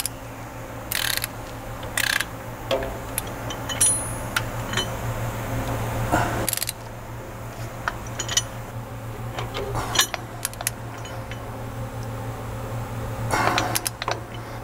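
Click-type torque wrench ratcheting in short strokes on the hammer mill rotor's center hub bolt, with scattered sharp metallic clicks and clunks over a steady low hum. The bolt is being run down to its set 80 foot-pounds, where the wrench clicks.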